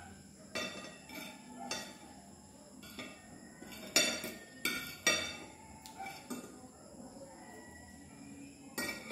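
Spoon and fork clinking and scraping against a plate while eating a meal, about seven separate sharp clinks at irregular intervals, the loudest about four and five seconds in.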